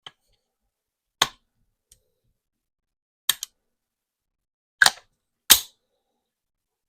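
Sharp metallic clicks from an AR-15 rifle being handled and assembled: five separate clicks a second or two apart, one of them a quick double click.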